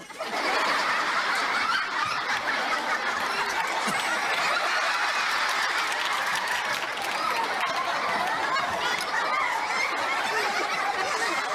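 Studio audience laughing, many voices overlapping in one long unbroken stretch.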